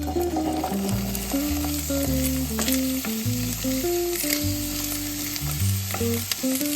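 Food frying and sizzling in a pan, with a few sharp clicks of a utensil, under background music.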